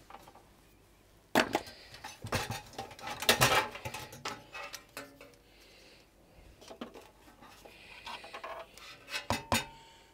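Sheet-steel parts of a computer chassis being unscrewed and lifted out: scattered clanks, knocks and scraping of metal against metal, loudest between about one and four seconds in.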